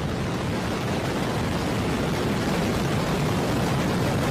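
Terran 1 rocket's first-stage engines, nine Aeon 1 methane-oxygen engines, firing at liftoff as the booster climbs off the pad: a steady roar of exhaust noise that grows slightly louder.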